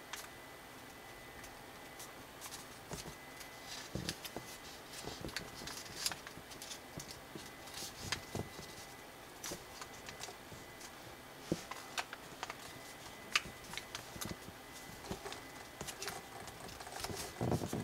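Colored origami paper rustling and crinkling as it is folded and creased by hand, with irregular small clicks and taps, growing busier near the end.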